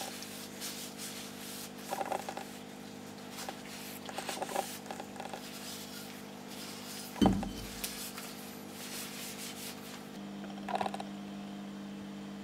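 White-gloved hands handling and turning a steel cleaver with a wooden handle: soft rubbing and rustling in short spells, with one sharp thump about seven seconds in, over a steady low hum.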